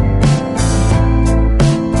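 Background music: an upbeat track with plucked guitar over a steady bass and beat.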